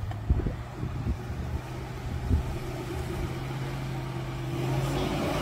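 Vehicle engine idling steadily, with a few low thumps in the first couple of seconds; the engine sound grows somewhat louder near the end.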